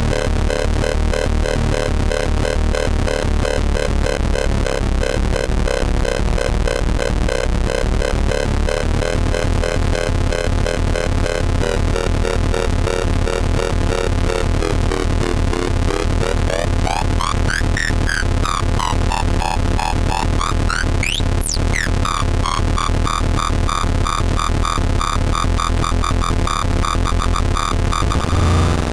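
tetraBIT prototype synthesizer, a variant of the 40106 hex Schmitt-trigger oscillator, making dense buzzing square-wave tones over a fast pulsing low end. From about halfway through, tones sweep up and down in pitch, with a sharp glide near the end of the sweeps, then settle into a steadier pulsing pattern.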